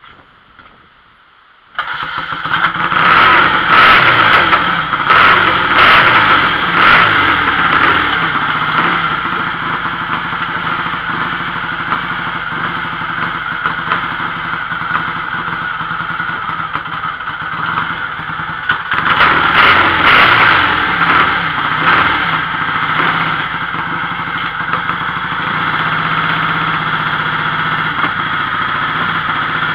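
Rebuilt BSA twin-carburetor motorcycle engine catching about two seconds in on its first start after at least ten years standing, then revved up and down in two bouts, with steadier running between and after. It runs loud and a little rough, with the carburetors still needing cleaning and the needles setting.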